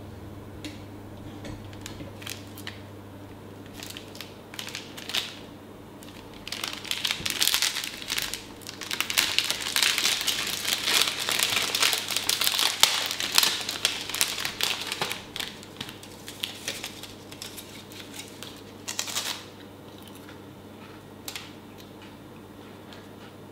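Plastic snack wrapper crinkling and rustling in irregular bursts as it is opened, loudest in the middle and stopping a few seconds before the end, over a faint steady hum.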